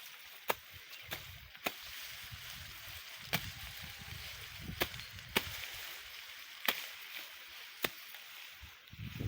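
Napier grass stalks being chopped by hand with a blade: about eight sharp, irregular chops over a steady rustle of leaves.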